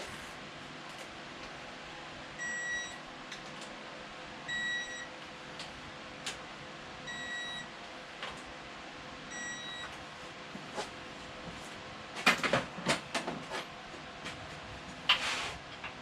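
Digital torque wrench beeping four times, a short high beep every two seconds or so, as bolts are pulled to the set torque; then a clatter of sharp metallic clicks and a single click near the end as the tool is handled.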